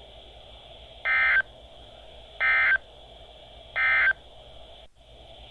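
NOAA Weather Radio SAME end-of-message data bursts: three short, shrill bursts of digital data tones about 1.3 s apart, marking the end of the warning broadcast, over steady receiver hiss.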